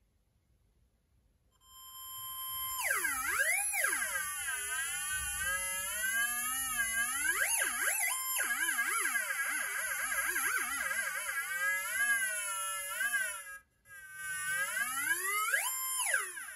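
MicroKits theremin circuit playing through its small speaker: an electronic tone that comes in about a second and a half in, holds one pitch for a moment, then swoops up and down in pitch with fast wobbles as a hand moves over the wire antenna. It cuts out briefly near the end, then returns with one steep rise in pitch.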